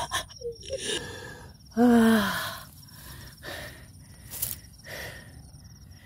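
A man's wordless exclamations of delight: short breathy sounds, then a loud cry falling in pitch about two seconds in. A faint steady insect trill runs behind, with a single sharp click near the end.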